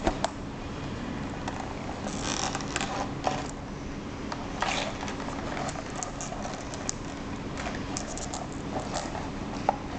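Quiet room tone with a steady low hum, broken now and then by light rustles and small clicks, most clearly a couple of seconds in and again about halfway.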